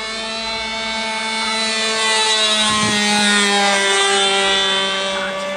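RC model airplane engine buzzing as the plane flies past low, louder toward the middle of the pass, its pitch falling slowly as it goes by.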